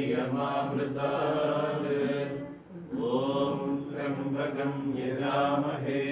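Sanskrit mantra chanting in two long drawn-out phrases of held notes, with a short breath between them about halfway through.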